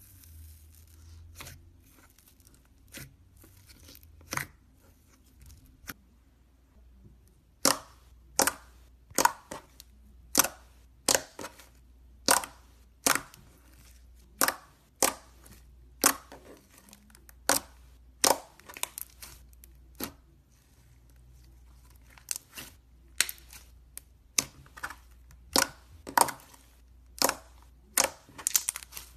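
Green slime poked and pressed with fingertips, giving a run of sharp pops and clicks as air pockets in it burst, about one or two a second. The first few are faint, and they turn loud from about eight seconds in.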